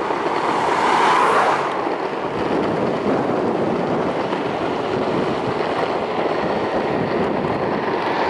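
Skateboard wheels rolling over rough asphalt in a steady rumble, with wind on the microphone; a car passes about a second in.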